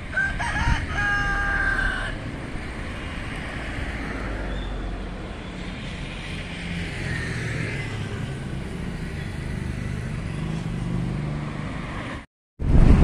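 A rooster crows once in the first two seconds. A steady low background rumble like road traffic continues after it. Near the end the sound drops out completely for a moment.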